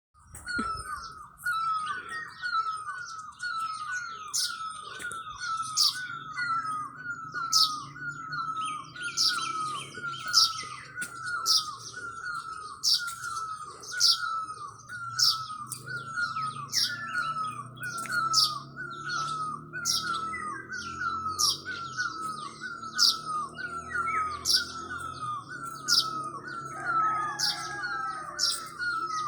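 Birdsong: one bird repeats the same short call over and over, about two a second without a break, while sharp, high chirps from other birds ring out over it.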